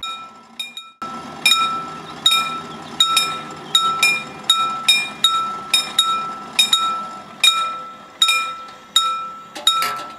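Level-crossing warning bell ringing with repeated metallic strokes, about one or two a second and sometimes in quick pairs, each ringing on and fading. It sounds while the crossing barriers lower to close the road.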